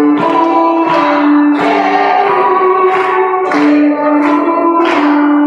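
Live violin playing long held notes over backing music with a beat.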